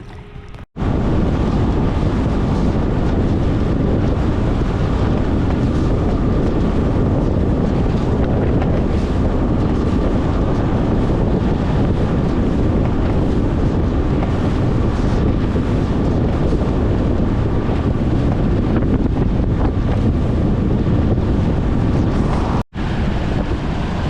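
Heavy wind buffeting the microphone on a bass boat running across the lake, with the outboard motor and rushing water under it. The noise cuts in abruptly about a second in and drops out for a moment near the end.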